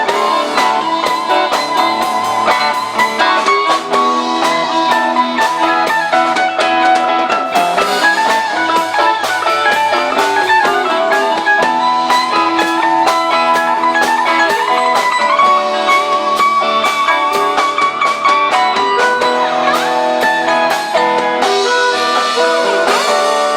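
Live rock band playing an instrumental passage: electric guitar notes bending in pitch over other guitar, bass and a drum kit.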